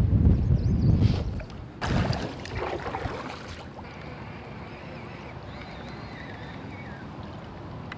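Wind buffeting the microphone in loud low rumbling gusts, with a sharp loud gust or splash near two seconds in. It then eases to a quieter, steady hiss of breeze and water around the kayak.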